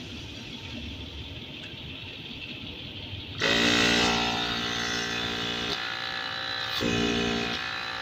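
Land Rover LR3/LR4 air suspension compressor's electric motor starting up under direct bench power about three and a half seconds in, running with a loud buzzing hum for a couple of seconds, then cutting out and buzzing again briefly near the end as power is switched on and off.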